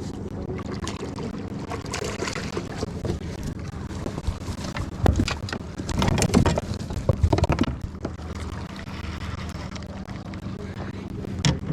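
A hooked catfish being landed at a kayak: a cluster of knocks and scuffs about five to eight seconds in, and one more just before the end. Under it runs a steady low motor hum, with wind on the microphone.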